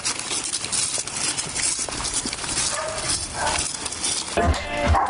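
Quick clicking and scraping on asphalt from a small dog walking in a cardboard tank costume. About four seconds in it breaks off into louder low thuds.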